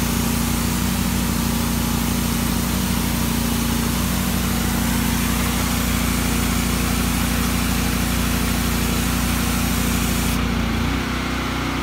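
Pressure washer's engine and pump running steadily while a General Pump soap shooter sprays a long jet of soap, a steady hiss over the engine's hum. Near the end the hiss drops away and the engine note changes.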